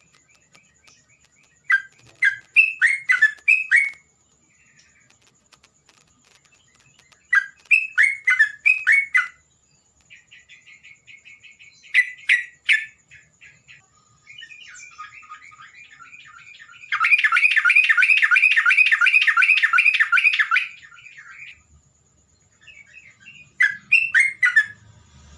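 Terocok bulbul singing: short bubbly phrases of quick chirping notes every few seconds, then a loud, fast chattering run of about four seconds past the middle, and one more short phrase near the end. A faint steady high-pitched tone sits underneath.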